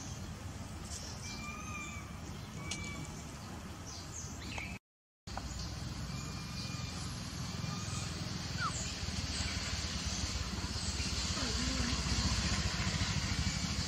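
Outdoor ambience: a steady hiss over a low rumble, with a few short, high chirps now and then. The sound drops out briefly about five seconds in.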